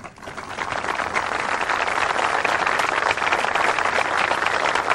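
A crowd applauding: a dense patter of many hands clapping that swells up over the first second and then holds steady.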